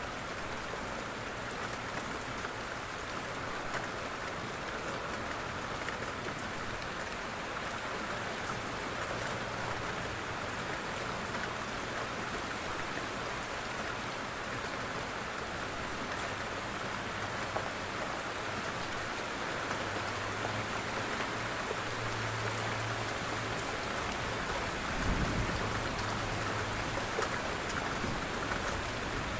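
Steady heavy rain falling, with a low rumble of distant thunder in the second half and a brief low thump about 25 seconds in.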